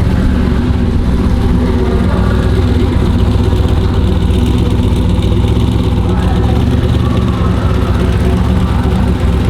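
A car engine idling steadily with a deep, even sound.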